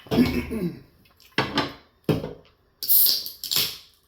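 Close-up eating sounds of a person chewing garlic parmesan chicken nuggets and fries: several short wet chewing and mouth noises, the longest near the end, after a brief hum in the first second.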